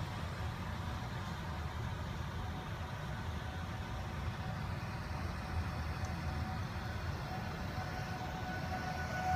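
Vehicles driving through deep floodwater on a city street: a steady rush of running water mixed with engine noise. From about halfway, a faint siren tone comes in and grows louder toward the end.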